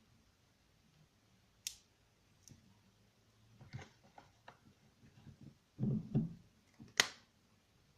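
Handling noises: scattered sharp clicks and light knocks of small objects being moved. There is a pair of duller knocks and then one sharp click near the end, the loudest sound.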